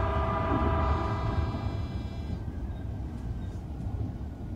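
An Odakyu Line electric train's horn sounds one steady blast of about two and a half seconds, then stops. Under it runs the low rumble of the train rolling along the track.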